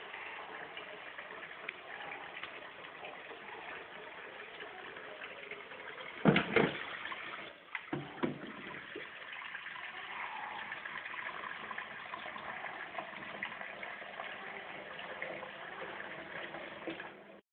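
Murky tap water running from a kitchen faucet in a steady stream into a bowl in a stainless steel sink. About six seconds in, a few loud knocks and clatters as the bowl is handled and emptied, then the water runs on, filling it again.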